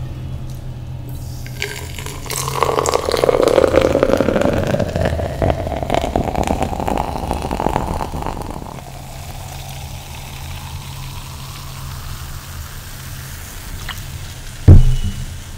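Dark fizzy drink poured from a glass jar into a tall glass, the pouring pitch rising steadily as the glass fills. A single loud knock near the end.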